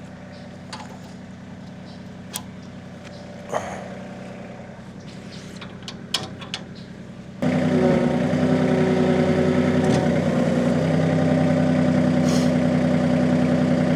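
LS MT 226E compact tractor's diesel engine running steadily, with a few sharp clanks in the first half. About seven and a half seconds in it suddenly becomes much louder and stays so.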